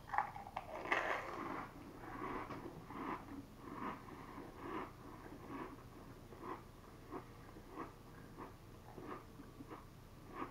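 A mouthful of stacked Pringles potato crisps being chewed close to the microphone: crunchy bites loudest in the first second or two, then softer, regular chewing about twice a second.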